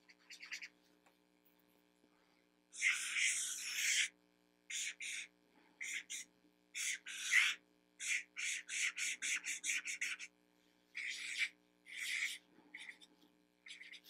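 Felt-tip marker squeaking and scratching across sketchbook paper in quick drawing strokes: one longer stroke about three seconds in, then a run of short strokes.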